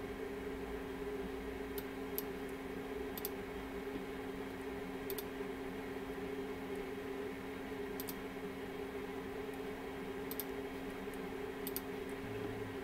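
Scattered faint clicks from working a computer, a second or a few seconds apart, over a steady low electrical hum.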